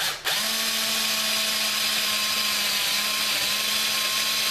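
DeWalt cordless drill starting up about a quarter second in, then running at a steady speed as a twist bit bores through a hardwood (maple and jatoba) clock blank, with a brief dip in speed near the middle.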